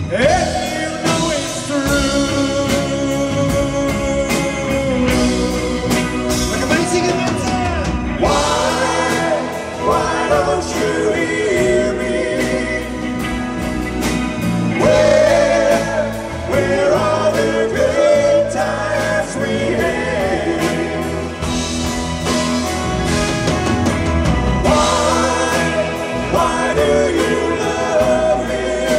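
Live pop-rock band playing with a male lead singer, backed by drums, bass guitar, electric guitar and keyboards.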